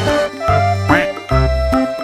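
Background music with a melody over short repeated bass notes, and a quick rising swoop about halfway through.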